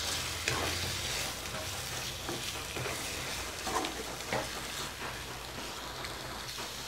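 Chicken livers and gizzards sizzling as they sauté in a nonstick wok, stirred with a wooden spatula that scrapes and knocks lightly against the pan a few times.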